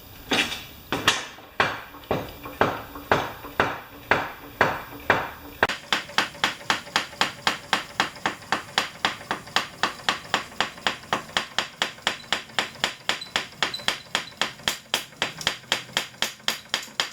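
Mower lift being raised with a steady series of sharp ratcheting clicks, about one and a half a second at first, then about four a second from roughly six seconds in.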